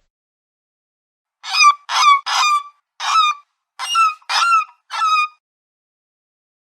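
A bird honking: seven short, loud calls in an uneven series over about four seconds, each ending with a quick drop in pitch.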